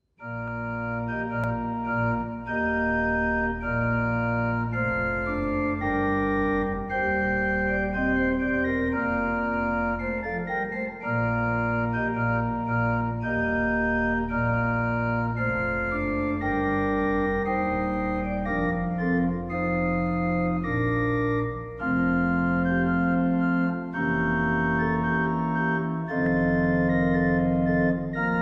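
Rodgers pipe-and-digital church organ playing a slow piece in full sustained chords over deep pedal bass notes. It comes in suddenly at the start, and the chords change every second or two with short breaks between phrases.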